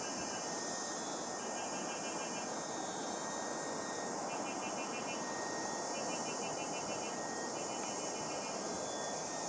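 Outdoor ambience of a steady rushing noise, over which insects trill in short, rapidly pulsed high bursts about every second or so.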